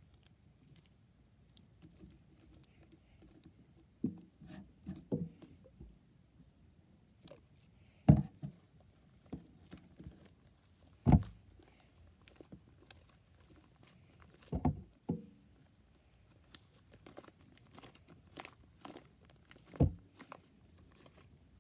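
Things being handled on a desk: scattered short knocks and thumps, the loudest about eight and eleven seconds in, with light rustling and clicking between them.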